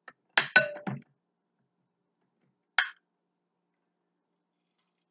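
Handheld lemon squeezer clinking against a glass bowl while lemon halves are pressed: a quick cluster of sharp clinks with a short ring in the first second, then a single sharp click near the middle.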